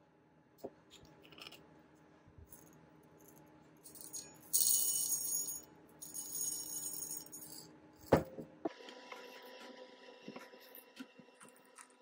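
Whole roasted coffee beans pouring from a glass jar into a stainless-steel dosing cup, rattling against the metal in two pours starting about four seconds in. A single sharp knock follows about eight seconds in.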